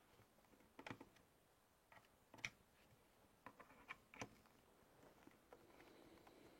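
Faint, scattered clicks and taps of a small plastic sat-nav unit being handled and turned over, about half a dozen over several seconds.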